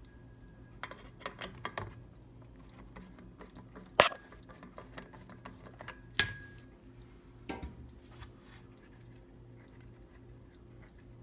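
Hard clinks and taps of screws and tools against the ceiling fan's light-kit housing while it is being unscrewed: a few light taps, then two sharp clinks about four and six seconds in, the second ringing briefly, and a smaller rattle near eight seconds.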